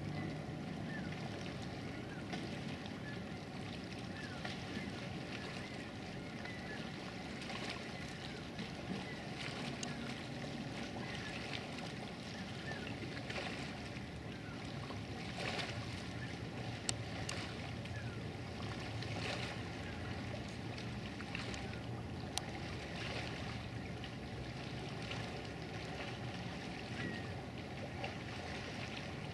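Distant motorboat engine droning steadily across the water over a soft wash of wind and water noise, with two sharp clicks in the second half.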